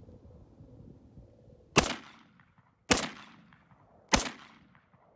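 Three shots from a 1974-made Yugoslavian SKS 59/66A1 semi-automatic rifle in 7.62×39, fired a little over a second apart, each trailing off in a short echo.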